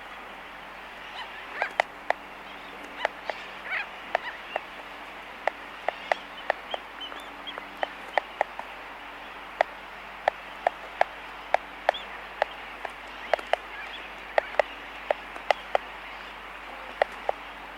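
Laysan albatrosses clacking their bills close by in a colony: sharp, irregular clicks, some in quick runs of two or three. Behind them is a steady din of a distant sooty tern colony, with a faint low hum.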